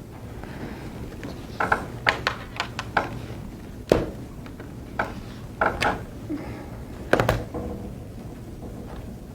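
Scattered small knocks and clicks, with two sharper knocks, one about four seconds in and one about seven seconds in, over a steady low background hum.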